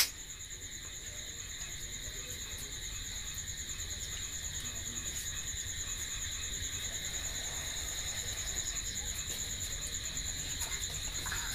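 Insects trilling: a steady, high, continuous trill with a second, lower trill beneath it.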